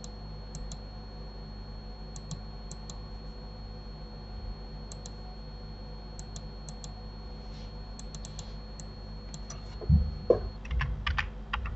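Computer mouse clicks, single and in quick pairs, every second or so over a steady electrical hum with a faint high whine. Near the end, louder knocks and a run of keyboard-like clatter.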